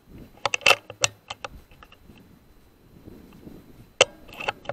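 Sub-12 ft-lb air rifle: a quick run of metallic clicks as the action is cycled to load the next pellet, then a single sharp shot about four seconds in, followed by a few more clicks.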